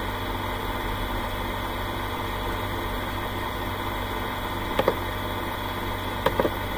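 Steady low hum and hiss of background room noise, with two brief faint sounds about five and six and a half seconds in.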